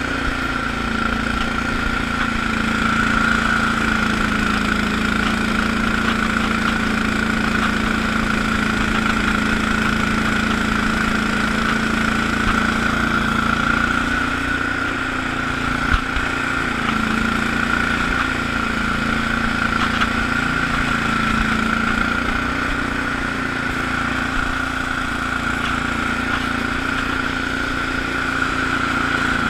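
Allis-Chalmers HB-112 garden tractor engine running steadily while powering a 48-inch Sweepster rotary broom sweeping snow, with a steady high whine over the engine note. A single brief knock about halfway through.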